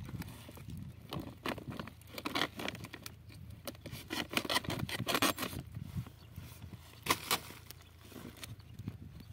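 Wheat seed being scooped and poured into a woven plastic sack: irregular bursts of grain pattering and the sack rustling, with scraping.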